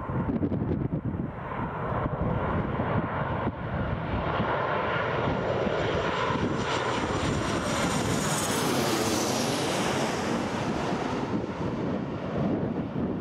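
Boeing 737 jet airliner on final approach passing low overhead. The engine noise builds to a peak with a high whine that falls in pitch as it passes, then eases as the aircraft moves away.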